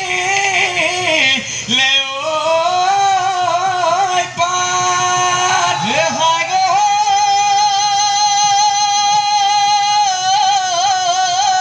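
Men singing a Bihu husori song. Their voices rise and fall through short phrases, then hold one long wavering note from about six seconds in until near the end.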